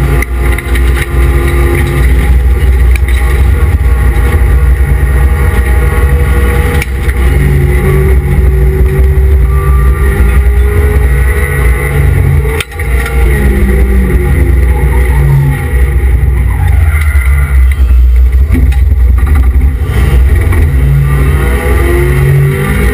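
Mazda MX-5 race car engine heard from inside the cockpit at racing speed, very loud, the revs rising and falling through the corners. There is a short sharp drop in the sound about halfway through.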